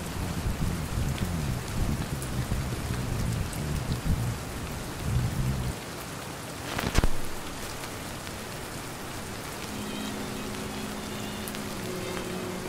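Steady rain hissing, with a low uneven rumble through the first half and a sudden loud crack about seven seconds in, which is plausibly thunder. Faint music with held notes comes in near the end.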